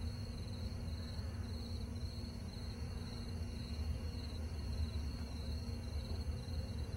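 Crickets chirping steadily in a continuous pulsing trill, over a constant low background rumble.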